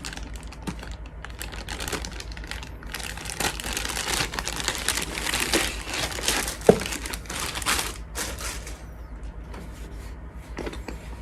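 Crinkling and rustling of packaging being handled and unwrapped, dense for most of the stretch, then thinning to scattered crackles near the end. A single sharp click or knock about two-thirds of the way in is the loudest moment.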